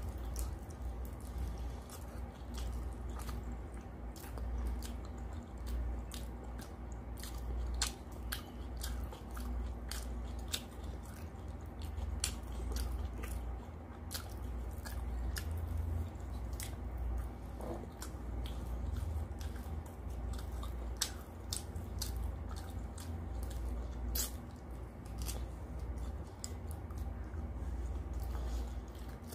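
Close-up chewing and wet mouth sounds of someone eating mutton curry and rice by hand, with many sharp lip smacks and clicks scattered throughout. A low steady hum runs underneath.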